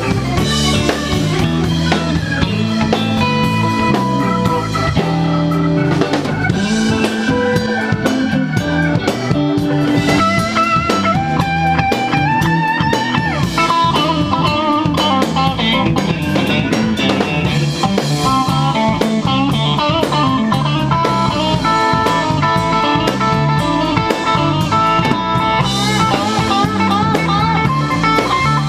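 Live blues band playing an instrumental stretch: electric guitar leading with bent, sliding notes over a steady drum kit beat, no singing.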